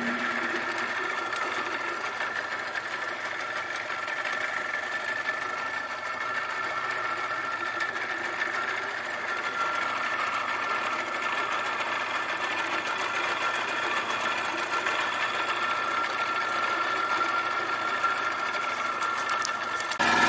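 Boat's outboard motor running steadily at slow trolling speed, a constant humming drone.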